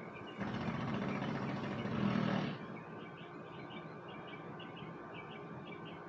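Small birds chirping repeatedly in the background. About half a second in, a louder rush of noise lasting about two seconds cuts in and stops abruptly.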